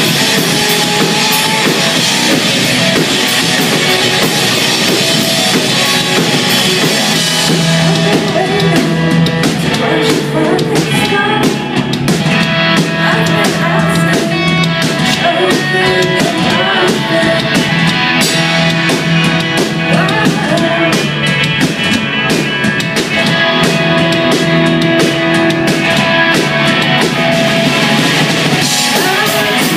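Live rock band playing loud, with electric guitars, bass, a pounding drum kit with cymbals, and a singer. The song runs on without a pause.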